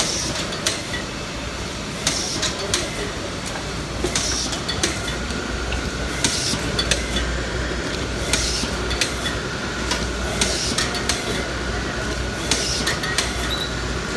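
High-speed cotton bud making machine running: a steady mechanical hum with sharp metallic clacks, mostly in pairs about half a second apart, repeating about every two seconds. A faint steady whine joins in about five seconds in.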